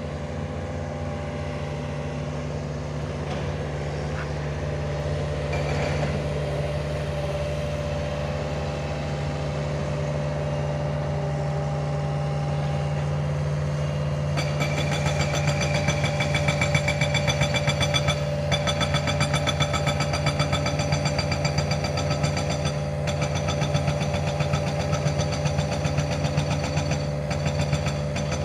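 Mini excavator's diesel engine running steadily, louder with a rapid clatter from about halfway through as it works.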